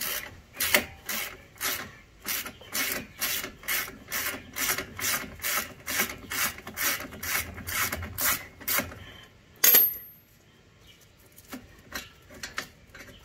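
Hand ratchet worked back and forth in short, even strokes, about two or three a second, backing out a rusted brake caliper bolt. The strokes stop after about nine seconds, followed by a single sharp metallic clink with a brief ring.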